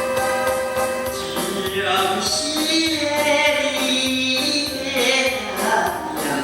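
A man singing over a keyboard backing track played through a classroom sound system; the instrumental accompaniment leads and the voice comes in about a second and a half in.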